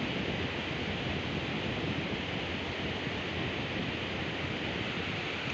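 Steady, even rush of sea surf and wind, with no distinct breaking waves or other events.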